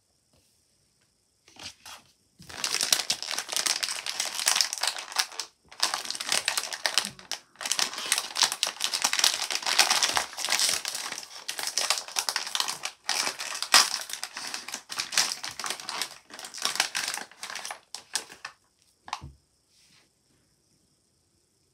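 Plastic wrapping of a blind-box figure crinkling and crackling in the hands as the figure is unwrapped, in a long run with short pauses. A brief knock comes near the end.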